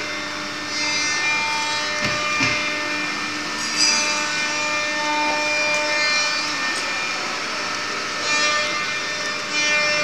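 CNC wood router spindle running and cutting wood, a steady whine under a rasping cutting noise that swells and eases every few seconds as the bit moves through the workpiece.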